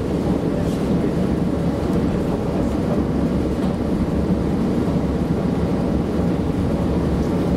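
Train running noise heard from inside the carriage: a steady low rumble of the train rolling along siding track.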